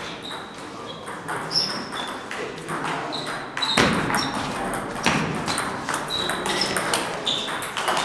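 Table tennis rally: the ball striking paddles and bouncing on a JOOLA table, each contact a sharp click with a brief high ping, coming irregularly and sometimes several a second. The loudest hit comes about four seconds in.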